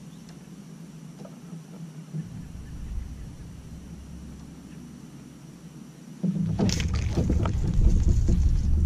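Low rumble of wind on an action-camera microphone mounted on a kayak. About six seconds in it turns much louder, with a run of knocks and rustles from the hull and gear as the angler sets the hook on a fish.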